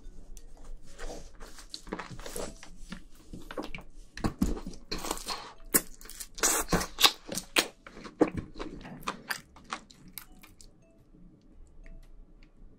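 Close-miked biting and chewing of an onion hot dog: a quick run of short, sharp, wet mouth sounds that die away about ten seconds in.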